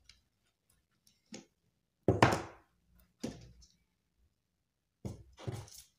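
A few knocks and thunks of objects being handled. The loudest comes about two seconds in, another follows a second later, and a cluster of lighter knocks comes near the end.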